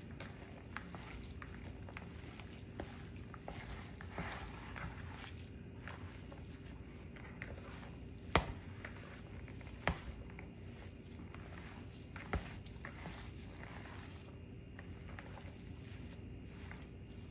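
Hands kneading a raw ground-meat, rice and mushroom mixture in a plastic bowl: faint, soft squishing, with a few sharper clicks in the second half, over a steady hum.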